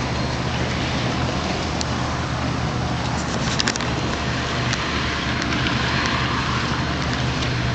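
Steady car cabin noise from a moving car: engine hum and road noise, with a few faint clicks about halfway through.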